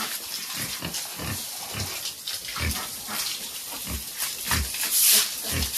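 Domestic pigs grunting in short, repeated grunts, with a stiff broom scrubbing the wet floor of the sty, its scrapes louder near the end.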